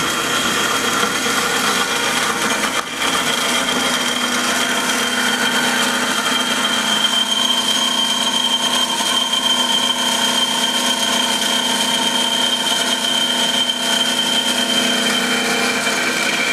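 JMT HBA330 automatic horizontal band saw running, its blade cutting through square metal tubing on a programmed cut. Steady machine sound with a high, even whine over a lower hum, dipping briefly about three seconds in.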